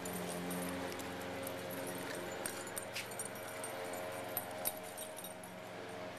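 Two puppies play-wrestling: scattered sharp clicks and light jingling as they scuffle, over a steady background hum.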